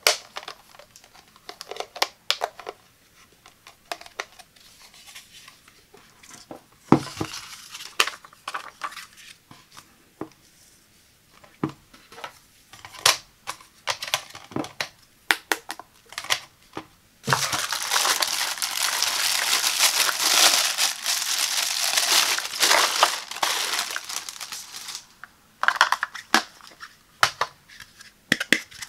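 Plastic parts of an electric egg cooker being handled, with scattered sharp clicks and taps. Past the middle comes about eight seconds of loud, dense crinkling of plastic wrapping as a part is unwrapped, then more clicks.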